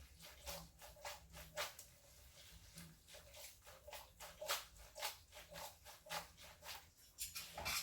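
Spaghetti being tossed in a pan with egg yolks off the heat: a utensil lightly clicking and scraping against the pan, about two soft clicks a second.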